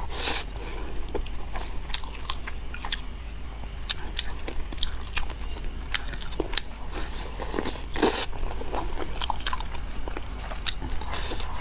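A person chewing and biting stewed spicy chicken wings close to the microphone, with many short, irregular mouth clicks.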